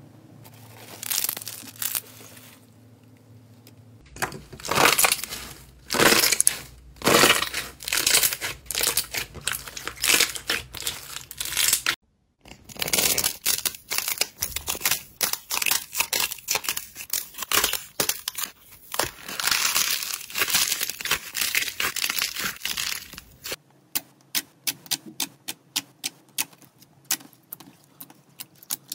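Hands squeezing, stretching and pressing slime, giving dense crackling and squishing in bursts that change with each clip. Near the end it turns to a quick run of separate sharp clicks as glossy glitter slime is pressed and folded.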